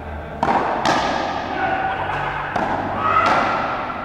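Frontenis rally: the rubber ball cracks off rackets and slams into the concrete front wall of an indoor frontón. There are four sharp impacts, each ringing out in a long echo through the hall.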